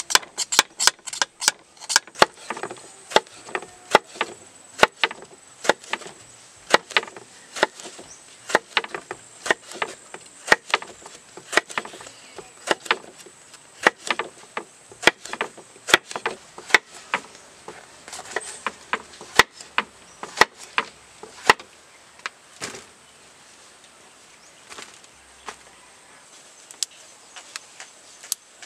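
Kitchen knife cutting through a sponge gourd onto a wooden chopping board, one sharp knock per cut. The knocks come quickly at first, then settle at about one or two a second, and grow sparse after about twenty seconds. A faint, steady, high-pitched insect drone runs underneath.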